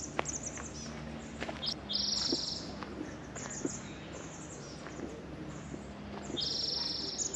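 Small songbirds chirping in quick high series, with two short buzzy trills, one about two seconds in and one near the end, over a faint steady low hum.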